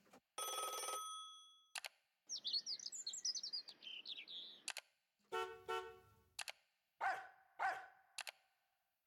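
A run of short everyday sound effects: a single ringing ding, a burst of high bird-like chirping, a telephone-like ringing, then two short animal calls.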